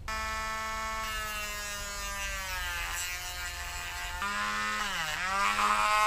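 Dremel rotary tool whining steadily as it grinds off the small locating ball on a motorcycle kill-switch housing, its pitch dipping twice, about two and a half and five seconds in.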